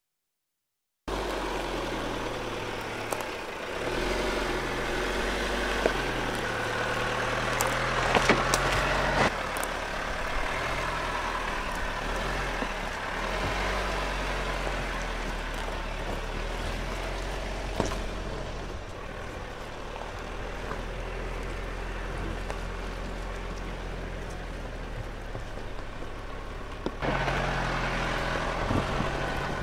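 Jeep Compass Trailhawk driving slowly off-road over a rocky, gravelly track, starting about a second in: engine running with tyres crunching over stones and a few sharp knocks of stone.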